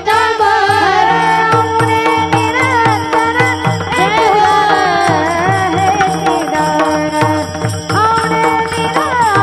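A woman singing a Marathi devotional abhang, the panchapadi that opens a Varkari kirtan, in a gliding melody over a steady drone. Percussion keeps a steady beat under the voice.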